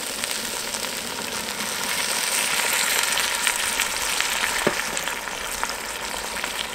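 Chopped vegetables and tomato paste sizzling in a hot cast-iron Dutch oven as red wine is poured in. The hiss swells a little about two seconds in, then settles.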